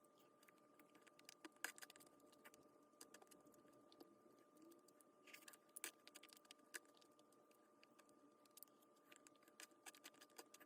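Near silence with faint, irregular small clicks and taps and a faint steady hum.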